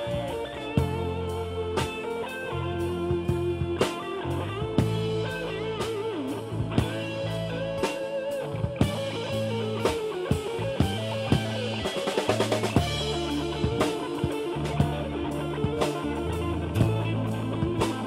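Rock band playing: electric guitar lines over a drum kit keeping a steady beat, with bass underneath.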